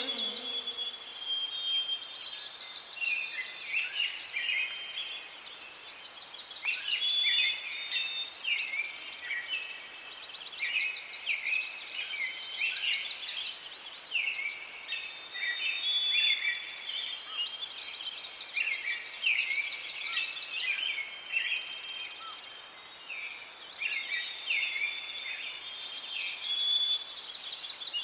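Songbirds singing, several overlapping: quick chirps, trills and short whistled phrases repeating one after another.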